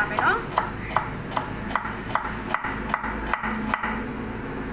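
Kitchen knife slicing a peeled onion thinly on a wooden cutting board: about ten even strokes, a little under three a second, each blade cut ending in a tap on the board, stopping near the end.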